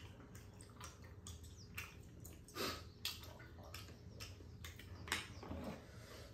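Two people eating tteokbokki rice cakes: chewing, with irregular wet mouth clicks and smacks, the loudest about two and a half and five seconds in.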